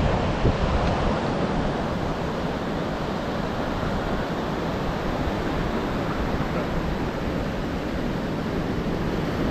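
Steady rush of ocean surf breaking on a beach, with wind blowing across the microphone.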